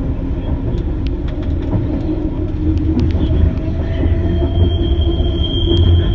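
Detroit People Mover car, an automated train with steel wheels on steel rails, running along the guideway with a steady rumble and scattered clicks from the track. About halfway through a high, steady wheel squeal sets in as the car rounds a curve.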